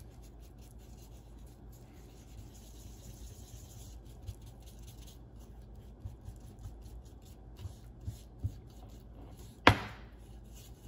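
Two-part JB Weld epoxy being stirred with a wooden stick on a piece of card: a faint, steady scraping and rubbing with a few light ticks. Near the end comes one sharp knock as the aluminium tube tips over onto the plastic cutting board.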